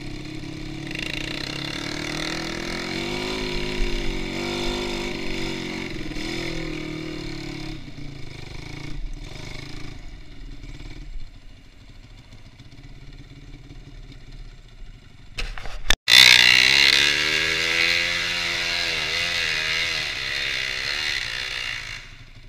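Motorcycle engine running, its revs rising and falling. About sixteen seconds in, the sound cuts out for an instant, then comes back louder.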